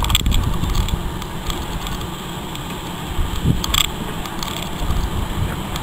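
Green tank engine made up as Percy the Small Engine running slowly past, a low steady rumble, with one sharp click about four seconds in.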